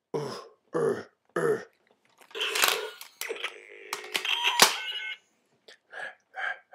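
Electronic sound effects from a battery-powered light-up toy gun: three short zaps falling in pitch, then a longer noisy blast with clicks and steady beeping tones, then a run of short blips near the end.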